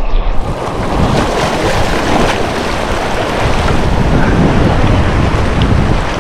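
Whitewater river rapids rushing steadily, heard from a kayak in the middle of the run, with wind noise on the microphone.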